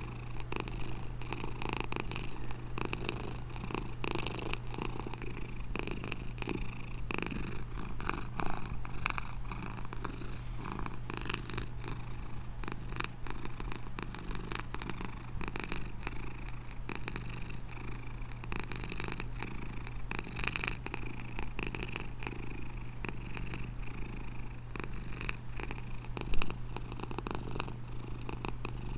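Domestic cat purring steadily and continuously, a fast, even rumble of rapid pulses. Near the end there is one brief louder bump.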